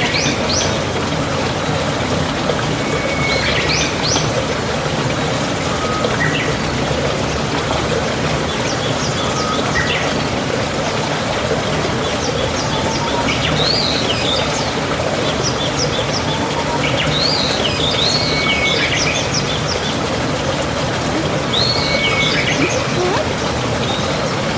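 Birds calling outdoors in short repeated phrases every few seconds: a brief steady whistle followed by quick chirps and rising notes, over a steady background hiss.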